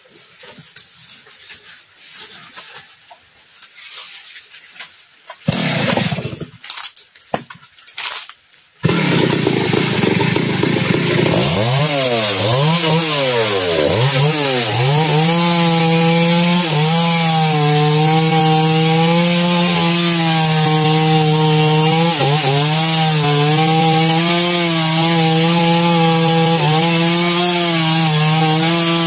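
A Stihl chainsaw starting about nine seconds in, revving up and down a few times, then running steadily under load as it cuts through a felled manglid log, its pitch dipping slightly as the chain bites. Before that there is only light rustling and handling noise.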